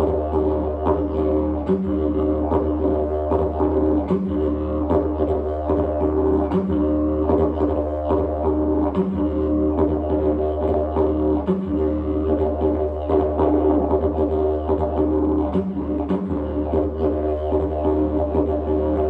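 Didgeridoo played with a continuous low drone and its overtones, pulsed by quick rhythmic articulations. The drone dips briefly about every two and a half seconds.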